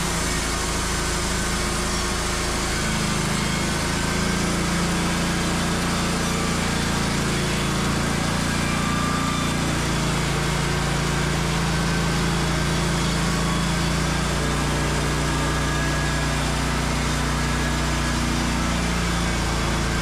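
Wood-Mizer LT35 band sawmill running steadily, its engine under load as the band blade saws through a red oak quarter. The engine note shifts slightly about three seconds in.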